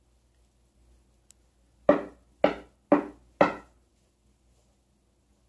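Four knocks on a door, about half a second apart, each with a short ring: a visitor knocking.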